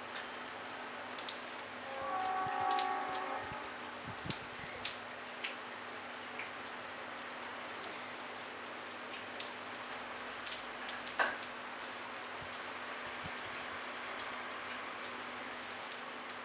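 Light rain falling steadily, with scattered drops ticking close by and one louder drip about eleven seconds in. About two seconds in, a pitched sound lasting a second and a half rises above the rain and is the loudest thing heard.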